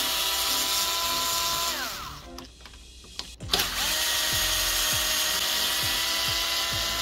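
Cordless drill-driver running steadily as it backs out the screws of a coffee machine's valve distributor housing. Its motor winds down about two seconds in, and after a short pause a second run starts about halfway through.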